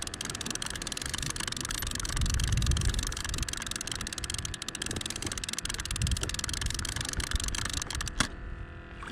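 Spinning fishing reel being cranked to bring in a hooked rockfish: a steady whirring with fine rapid clicking that stops about eight seconds in.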